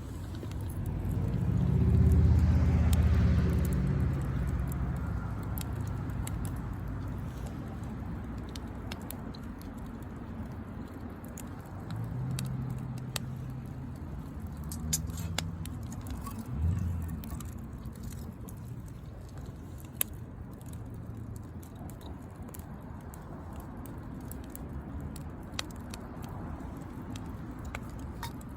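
Wood fire crackling with scattered sharp pops, while a car passes about two seconds in, its rumble swelling and fading away; another low rumble comes and goes later.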